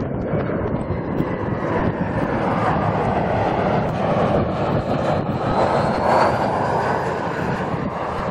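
An airliner's engines passing close by, a loud steady rush of engine noise with a faint high whine that rises slightly in pitch midway.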